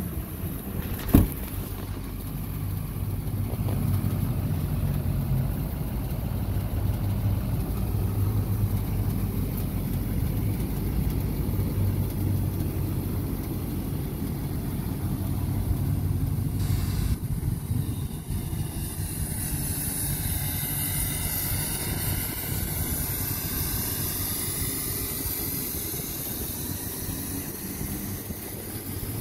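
2008 Chevrolet Silverado 3500HD's 6.6 L Duramax V8 turbodiesel idling steadily, with one sharp knock about a second in.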